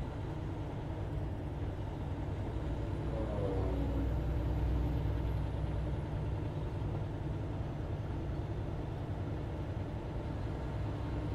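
International semi-truck's diesel engine and road noise, a steady low drone heard inside the cab while cruising at about 40 mph.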